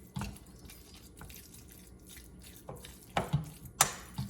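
Seasoned ground pork being stirred together with sauces in a bowl: soft wet squelching, with a few sharp clinks against the bowl in the second half.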